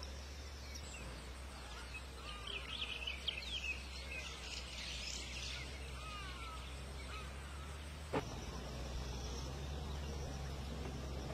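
Outdoor rural ambience: birds chirping in short, quick calls over a steady low rumble, with a single sharp click about eight seconds in.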